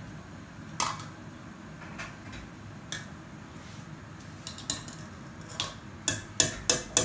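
Metal potato masher knocking and scraping in a stainless steel pot of boiled potatoes being mashed: a few scattered clinks at first, then about three quick strikes a second near the end.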